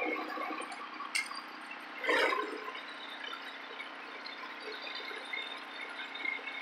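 Garden tractor with a front-mounted snowblower running through deep snow, a steady rushing noise. There is a sharp click about a second in and a louder short burst about two seconds in.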